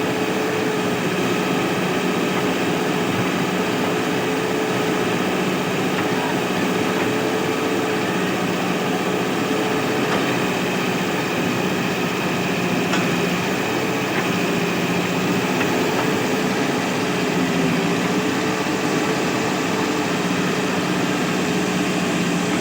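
Mahindra backhoe loader's diesel engine running steadily, its pitch wavering slightly.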